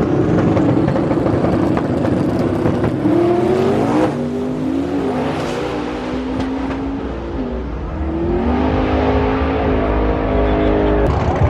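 Drag-racing pickup truck's engine revving at the starting line, then accelerating hard away down the strip, its pitch climbing several times in steps.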